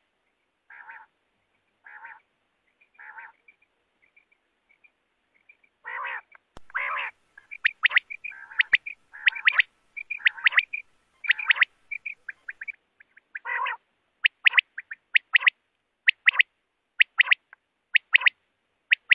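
Common quail (batair) calling: a run of short, repeated calls, some lower and buzzier, others sharp and high. After a brief lull with only faint chirps about four seconds in, the calls come thick and fast, roughly one or two a second.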